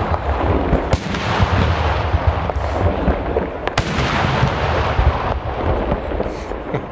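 Daytime fireworks: a dense barrage of many overlapping aerial shell bursts over a low rumble, with sharp single bangs about a second in and again near four seconds. The barrage thins out and fades toward the end.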